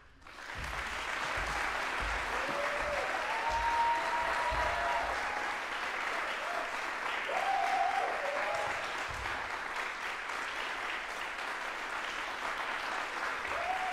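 Audience applauding, starting about half a second in and holding steady, with a few cheers rising over it.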